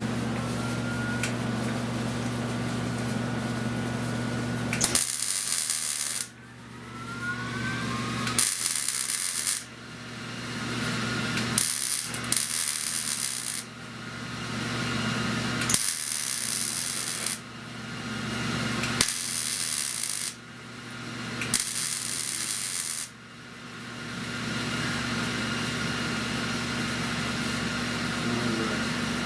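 Wire-feed welder laying a series of short welds on sheet-metal body panel, six bursts each about half a second to a second and a half long, with a steady low hum in between.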